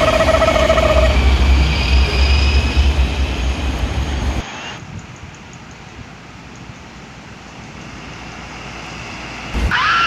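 Heavy flatbed truck's diesel engine rumbling as it drives past and away, with a brief steady tone over it in the first second. About four and a half seconds in, it cuts abruptly to quieter road noise that slowly grows as another truck approaches.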